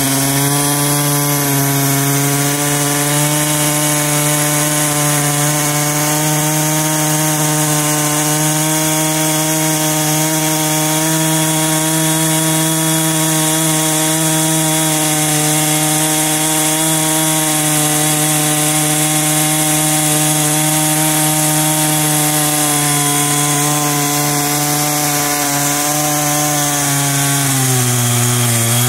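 Husqvarna two-stroke chainsaw running at full throttle, its chain cutting through a large tree stump to rip off a slab. The engine note holds steady and high, then sags briefly near the end and picks back up.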